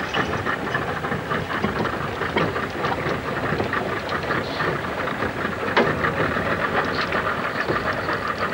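Outboard motor running steadily at trolling speed, heard from aboard the boat it drives, a fast, even rattle.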